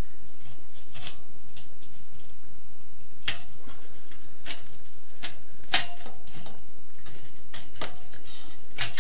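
Tin snips cutting into the flange of a thin sheet-steel drywall profile: a scatter of sharp metallic clicks and snips, one every second or so.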